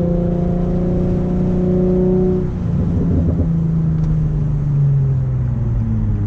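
Infiniti G35's 3.5-litre V6 and exhaust under way, the note rising slightly for about two and a half seconds. A brief rough patch of short pops and crackles follows as the throttle comes off, then the engine note falls steadily as the car slows.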